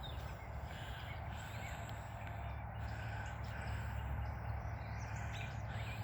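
Birds chirping faintly now and then over a steady low rumble.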